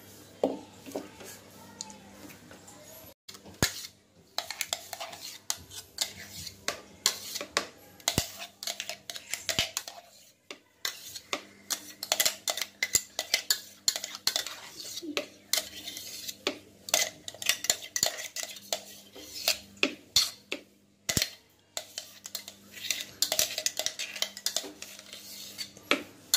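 A metal spoon scraping and knocking against the inside of a mixer-grinder jar, scooping out thick blended mango ice cream mix: irregular clinks and scrapes, often in quick runs.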